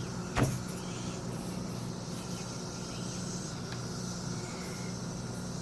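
Steady low background hum, with a single sharp click about half a second in.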